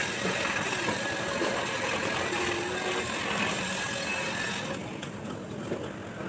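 A machine running steadily, a whirring hiss with a faint whine in it, that drops away about five seconds in.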